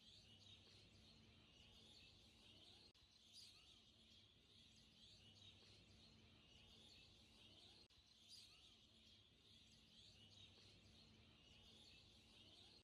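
Near silence, with a faint looping background of bird chirping that repeats about every five seconds.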